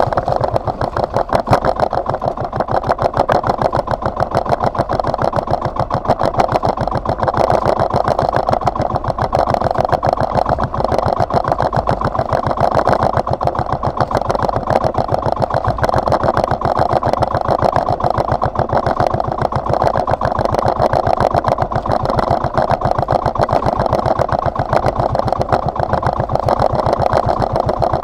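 Outrigger boat's engine running steadily under way, a rapid, even firing beat.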